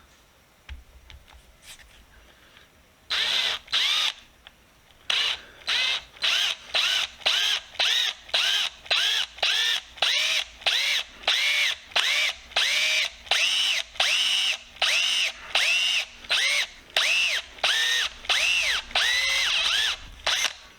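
A small power tool motor is run in short trigger pulses. A first burst comes about three seconds in, then roughly twenty more follow at a steady pace, each spinning up and winding back down. The last run is longer.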